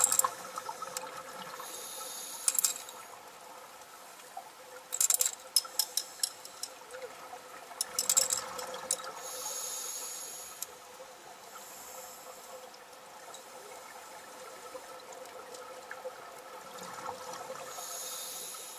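Scuba diver breathing through a regulator underwater: a hissing inhalation, then a burst of crackling, bubbling exhalation, repeating about every eight seconds, over a faint steady hum.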